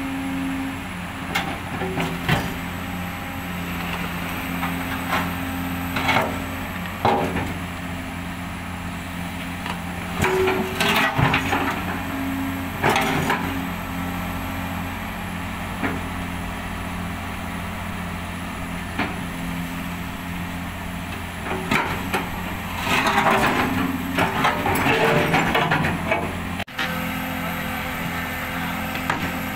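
Hydraulic excavator's diesel engine running steadily while its bucket teeth scrape and knock against a heavy counterweight block and the ground, with several sharp knocks and a louder stretch of grinding and scraping near the end.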